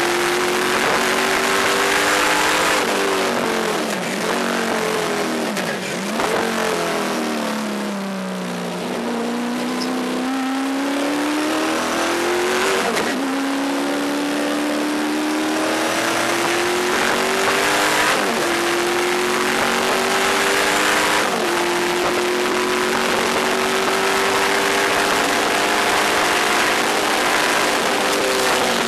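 Race-prepared Pontiac Trans Am's 700-plus-horsepower V8 at full race pace, heard from inside the cockpit. The engine note climbs under acceleration, slides down as the car slows about a third of the way in, then climbs again, broken by several brief sudden dips at gear changes.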